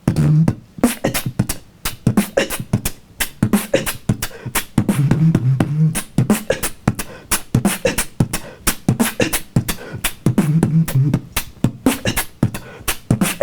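Human beatboxing: a fast run of vocal kick, snare and hi-hat sounds, with a low hummed bass phrase returning about every five seconds.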